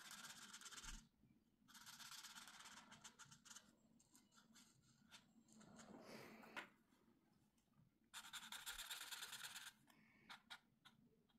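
Felt-tip marker scratching across a colouring-book page in several short bursts of strokes with pauses between, then a few light clicks near the end.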